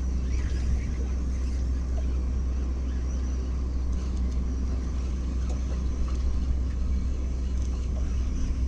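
Boat engine running steadily at idle, a constant low rumble with a few small clicks over it.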